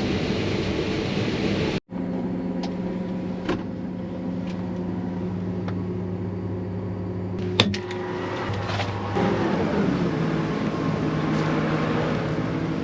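A vehicle engine runs steadily, heard from inside the cab. There is a sharp click about two-thirds of the way through, and soon after the engine note shifts slightly lower, then holds steady.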